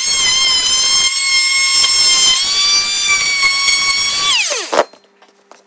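WORX oscillating multi-tool running with a loud, steady high-pitched whine as its blade shaves out a hinge recess in a timber door lining. About four seconds in it is switched off, and the whine drops quickly in pitch and dies away.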